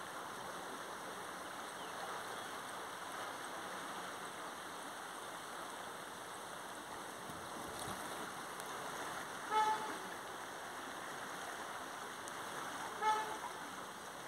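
Steady rush of the flooded, rain-swollen river. Two short horn toots come about two-thirds of the way through and near the end.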